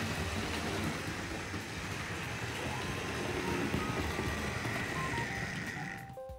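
Tri-ang R.53 Princess model steam locomotive running along the track: a steady electric-motor hum with the rumble of metal wheels on the rails. Music comes in near the end.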